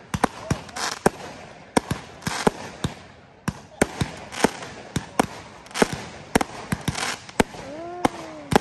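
Fireworks display: aerial shells bursting one after another at an irregular pace, a string of sharp bangs with crackling between them.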